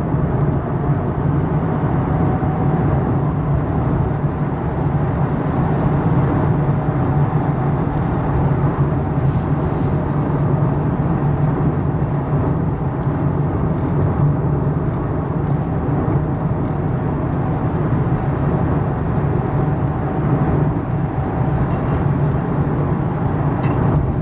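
Steady road and engine noise heard from inside a moving car's cabin: a low, even drone of tyres and engine at cruising speed.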